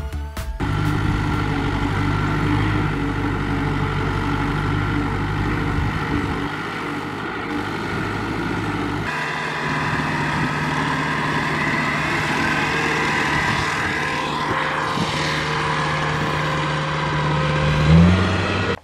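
Kubota M6040SU tractor's diesel engine running steadily, the sound changing abruptly about halfway in and briefly revving up near the end.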